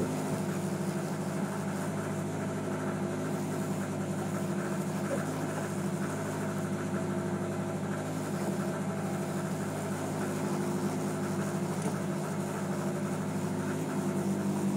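Fishing boat's engine running steadily, a low even hum with no change in pitch.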